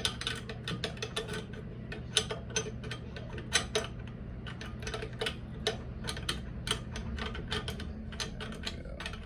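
Steel parts of an M1 Garand rifle clicking and scraping as the bolt is worked into the receiver during reassembly: many light, irregular metallic clicks, several a second.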